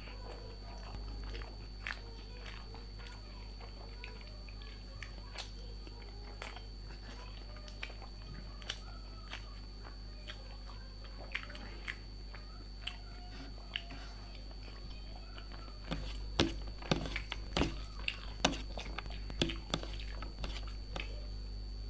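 A person eating close to the microphone: soft chewing with scattered small mouth clicks, then from about sixteen seconds in a run of louder crunching bites.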